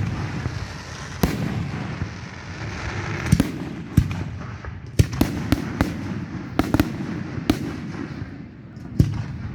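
Fireworks going off: a string of sharp bangs every second or so over continuous crackling.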